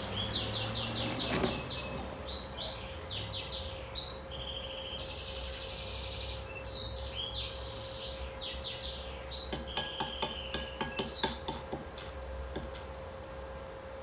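Birds chirping in repeated short calls. About nine or ten seconds in, a quick run of sharp metallic clinks and taps takes over. A faint steady hum runs underneath.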